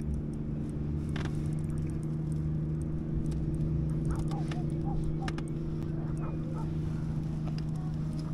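An engine running at a steady pitch, with scattered small clicks and taps over it.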